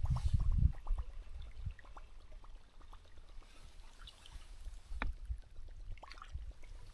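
Quiet water lapping and small handling noises in a fishing boat. There are a few low thumps at the start, scattered faint clicks, and one sharper knock about five seconds in.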